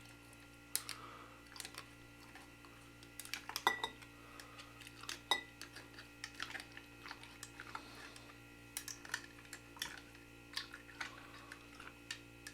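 Irregular light clicks and taps of a utensil against glass canning jars, as air bubbles are worked out of quart jars packed with raw chicken, over a faint steady hum.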